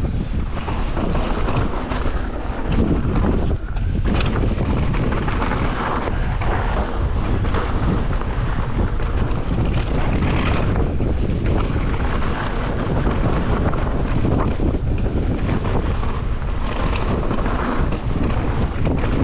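Wind rushing over the camera's microphone while riding a mountain bike down a dirt trail, a loud, continuous rush that rises and falls in gusts.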